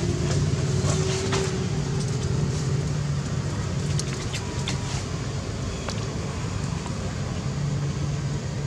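A steady low motor-like hum over outdoor background noise, with a few faint clicks.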